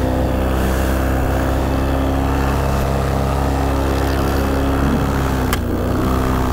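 Paramotor engine and propeller running steadily in flight. About five and a half seconds in there is a single sharp crack: the pull-starter's cross brace striking the spinning propeller.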